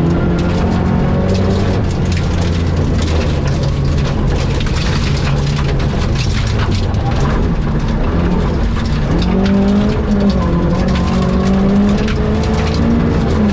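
Rally car engine running hard along a stage, its pitch holding, dropping and climbing again in steps as it accelerates and changes gear, over continuous tyre and road noise.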